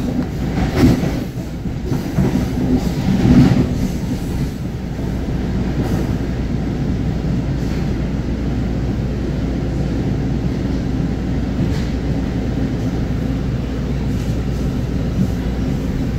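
Commuter train passenger coach running along the track, heard from inside the car: a steady low rumble of wheels on rail, with two louder swells about one and three and a half seconds in before it settles to an even running noise.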